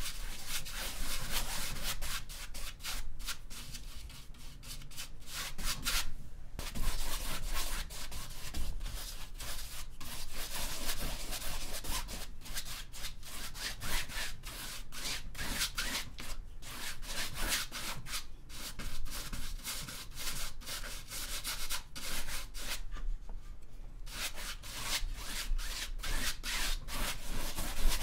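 A paintbrush scrubbing acrylic paint back and forth across a stretched canvas: a steady, rapid scratchy rubbing of repeated strokes, pausing briefly twice where the brush lifts off.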